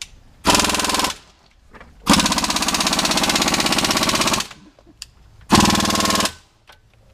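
MIG welder crackling in three bursts, a short one, a long one of about two seconds, then another short one, as beads are laid on the Jeep Cherokee's rear differential gears to weld the diff solid.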